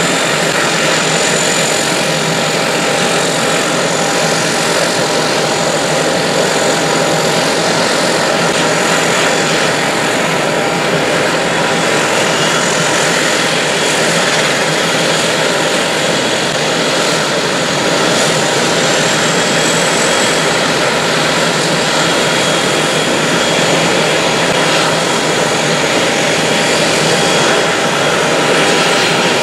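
Embraer 120 Brasilia's twin Pratt & Whitney Canada PW118 turboprop engines running at taxi power as the aircraft taxis past. Loud and steady propeller and turbine noise with a thin high whine.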